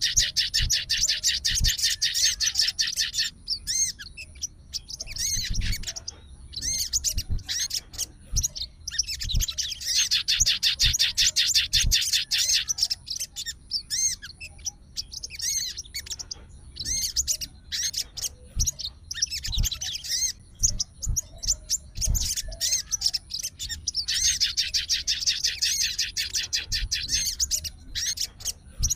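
Sogon songbird singing in full voice: three long, very fast high trills of three to four seconds each, with short chirps and call notes between them.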